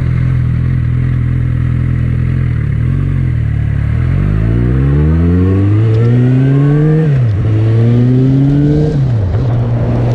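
Suzuki GSX650F's inline-four engine cruising steadily, then accelerating through the gears: the pitch rises and drops sharply at two upshifts, about seven and nine seconds in, before settling.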